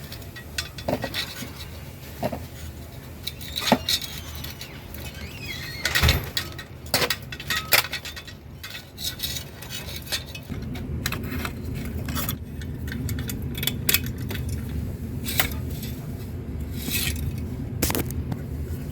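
Small metal parts clinking and scraping as a new thermocouple is fitted into a gas water heater's burner assembly, a run of irregular light clicks and taps. A steady low hum comes in about halfway through.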